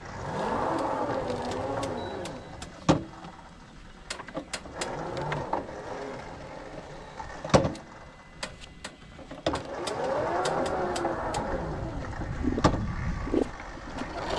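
Electric drive motors of a battery-powered stand-on lawn mower whining as it moves, the whine rising and falling in pitch near the start and again about two-thirds through. Sharp clicks and knocks from a wooden gate sound at intervals.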